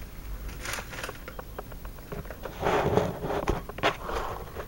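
Rustling and a few soft clicks and knocks of handling close to the microphone, with louder rustling near the end.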